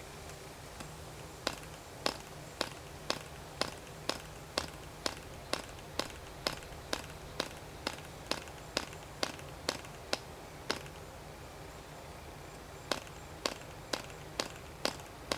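Sharp, evenly spaced clicks, about two a second, that stop for about two seconds near the end and then resume: typical of the propeller of a Cox Tee Dee .051 glow engine being flipped over by hand while it is hard to start.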